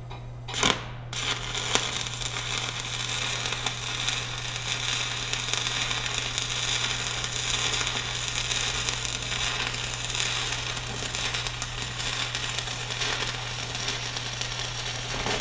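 Stick (shielded metal arc) welding on steel plate. The arc is struck with a couple of sharp pops about half a second in, then crackles and sizzles steadily as the bead is run, and cuts off suddenly at the end.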